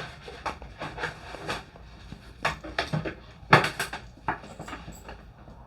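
Rummaging on a desk: a string of irregular light knocks, taps and rustles as small objects are moved about, with one sharper knock about three and a half seconds in.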